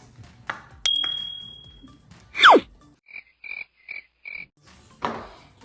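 A string of short sound effects: a click with a high ding that rings for about a second, then a quick, loud falling whistle, then five short high blips in a row.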